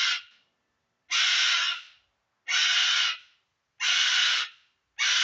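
Pet bird screaming over and over. The screams are harsh and loud, each under a second long, coming evenly about every 1.3 seconds.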